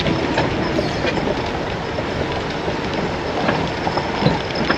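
A car in motion: steady road and engine noise with light rattling.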